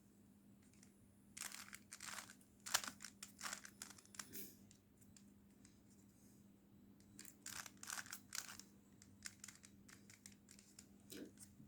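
Faint plastic clicking and clacking of a 3x3 Rubik's Cube's layers being turned by hand, in two flurries of quick turns as a move sequence is run.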